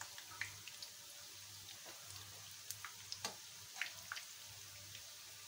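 Breaded potato bread rolls frying in hot oil: a faint, steady sizzle with a few scattered crackles and pops.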